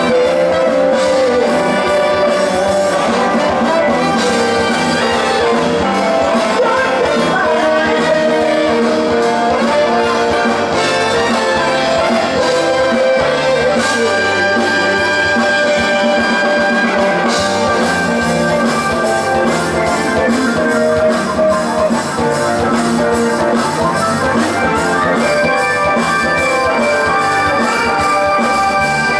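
Live rock band with a horn section playing: trumpet, trombone and saxophone over drum kit, electric guitars, bass and keyboards, at a steady driving beat.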